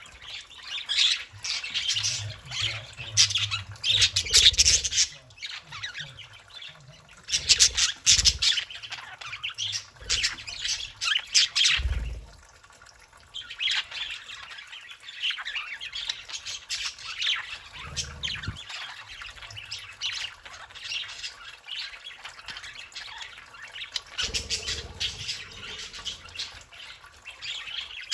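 Budgerigars chattering, chirping and squawking in busy, overlapping bursts, with a short lull about halfway through.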